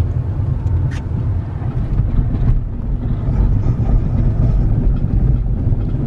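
Car driving along a snow-covered street, heard from inside the cabin: a steady low rumble of engine and tyres, with a single click about a second in.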